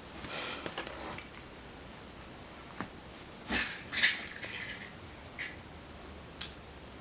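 A taped cardboard shipping package being cut open and handled: short scraping, rustling bursts as the blade goes through packing tape and cardboard, the loudest about four seconds in, with a few sharp clicks between.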